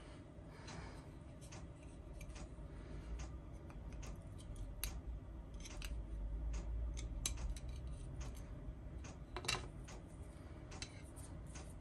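Scattered small sharp clicks and taps of a plastic model-kit part and its holding stick being handled on a cutting mat, with one louder click about nine and a half seconds in.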